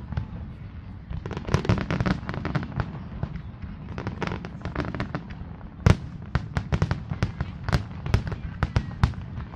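Fireworks display: aerial shells bursting in rapid bangs and crackles, thick clusters of reports with the loudest single bang about six seconds in, then a quick run of bangs.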